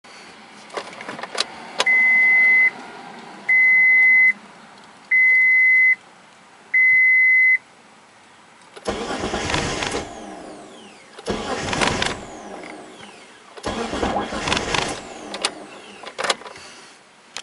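Mitsubishi 3000GT no-start attempt: a few clicks, then four evenly spaced electronic beeps, then the engine cranked three times in short bursts of about a second each without starting.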